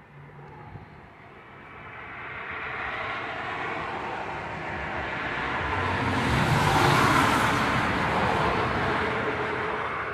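Strong wind rising into a gust that builds steadily for several seconds, peaks, then eases slightly, with low buffeting on the microphone at its height.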